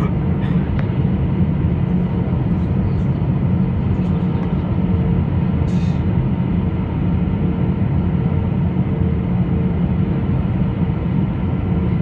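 Steady cabin noise inside an Airbus A320-214 airliner: a low engine and airflow rumble with a faint steady hum above it. A few faint clicks and rattles come through, near the start and again about six seconds in.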